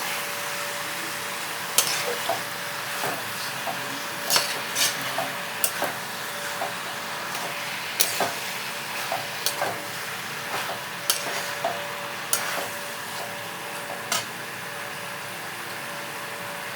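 Chicken sizzling as it fries in a pan, while a spoon stirs it with irregular sharp clinks and scrapes against the pan. The clinks thin out near the end and the sizzling carries on.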